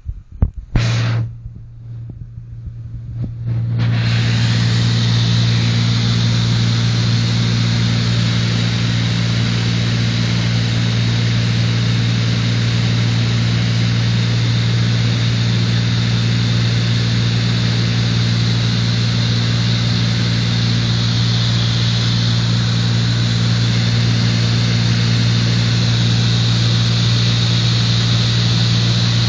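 Airliner cabin noise: a steady engine drone with a strong low hum and a hiss of rushing air. It comes up sharply about three and a half seconds in, after a brief loud burst near the start.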